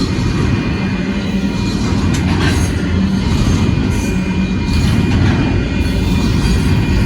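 Freight train rolling past: a steady rumble of cars over the rails, with faint, steady high ringing tones above it.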